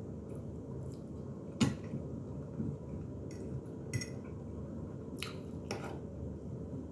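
A metal fork clinking and scraping against a plate several times, the sharpest clink about a second and a half in, over a steady low hum.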